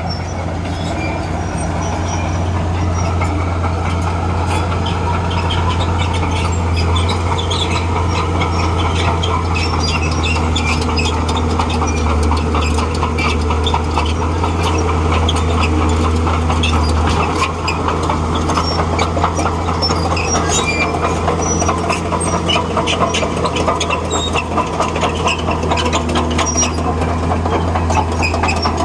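Crawler bulldozer working: its diesel engine runs with a steady low drone while the steel tracks clatter in a continuous run of rapid clanks.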